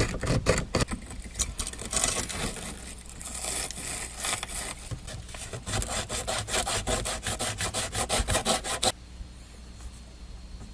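Hacksaw sawing through copper pipe in quick back-and-forth strokes, stopping suddenly near the end.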